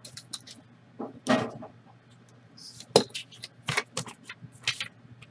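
Small hard objects handled on a tabletop: an irregular run of clicks, taps and light rustles, the sharpest click about three seconds in, over a faint steady hum.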